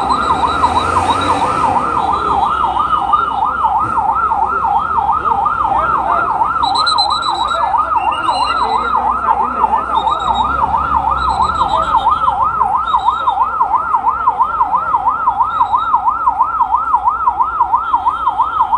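Fire engine siren sounding a fast up-and-down warble, about three to four sweeps a second, steady and loud throughout. Short higher-pitched tones come and go in the middle.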